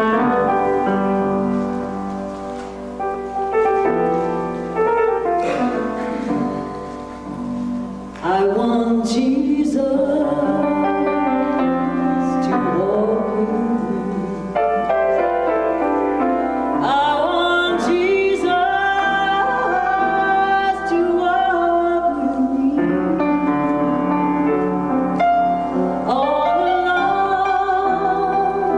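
Piano introduction to a spiritual, joined about eight seconds in by a woman's solo voice singing slowly over piano and double bass accompaniment.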